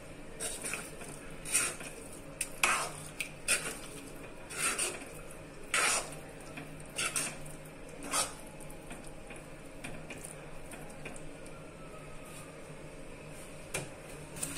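A metal spoon stirring and mashing thick pav bhaji in an iron kadhai, with irregular knocks and scrapes against the pan, most of them in the first eight seconds.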